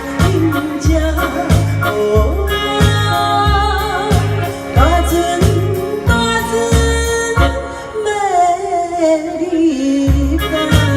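A woman singing a Taiwanese Hokkien pop ballad over a backing track with a steady, regular bass beat.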